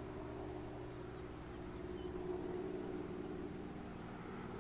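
Small two-bladed tour helicopter flying overhead: its engine and rotor make a steady drone.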